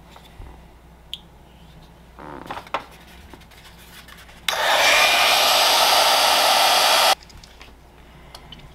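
Small handheld heat gun switched on, blowing steadily for nearly three seconds, then switched off abruptly. Before it, a few light clicks and rustles of small parts being handled.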